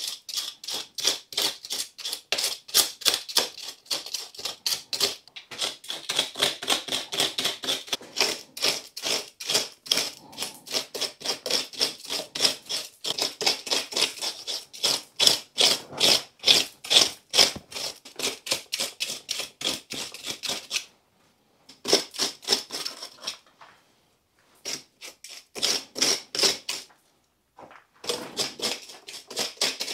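Small sharp sickle dragged in quick repeated strokes around the inside of a bonsai pot, scraping and cutting through roots to break the bond between the root ball and the pot. The strokes come several a second, with short breaks near the end.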